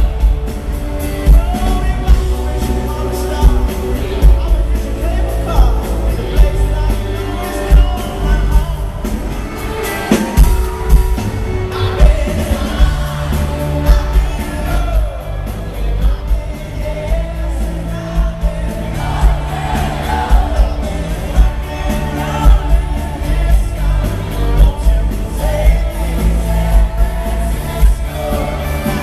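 Live pop-rock band performing: male lead vocals over drums, bass guitar and electric guitar, loud and heavy in the bass with a steady beat.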